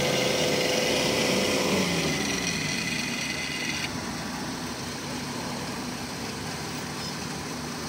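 Engines of a Kubota combine harvester bogged in mud and of the machines hauling it out, running. A high whine cuts off about four seconds in, and the engine sound eases and grows quieter over those first seconds.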